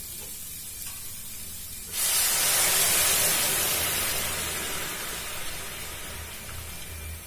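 Hot water from an electric kettle poured into a hot wok of frying soya chunks and potatoes. A faint sizzle, then a sudden loud hiss of steam about two seconds in that slowly fades.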